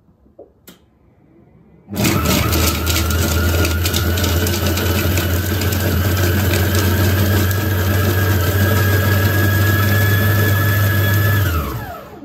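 Monsieur Cuisine Connect food processor's motor starting suddenly and running steadily at speed 5, its blade chopping onion in the bowl, then winding down with a falling whine near the end.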